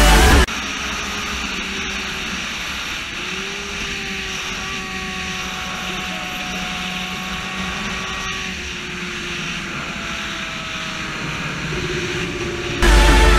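600cc inline-four sport motorcycle engine running at a steady cruise, its note holding nearly level, under steady wind rush over the camera microphone.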